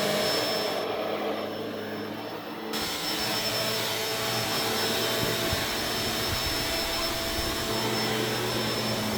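Vacuum cleaner running steadily while vacuuming carpet: a steady motor and airflow noise with a thin high whine. About a second in the sound turns duller for a second and a half, then comes back full.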